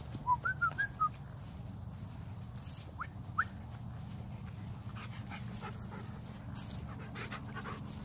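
A dog whining in short high-pitched notes: five quick ones in the first second, then two rising ones about three seconds in. Footsteps rustle through dry leaf litter in the second half.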